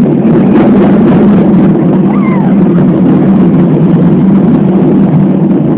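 Worm-shaped children's amusement ride (gusanito) in motion, heard from the seat: a loud, steady rumble.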